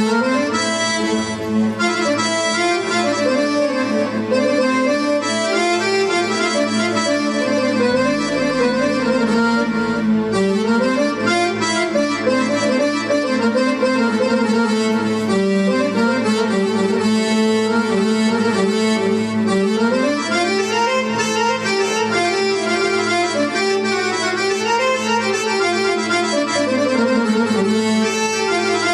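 Egyptian baladi music led by accordion, playing a flowing melody with runs that rise and fall over a steady held low note.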